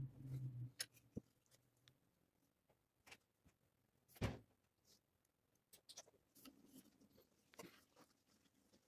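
Faint handling of wood pieces: scattered light clicks and rubs of pine strips on a pine panel, with one louder knock about four seconds in as a glued strip is pressed onto the panel edge. A brief low hum at the very start.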